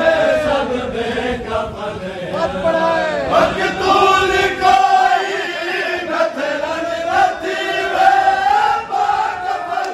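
Several men's voices chanting a noha, a Shia mourning lament, together in a slow, wavering melody.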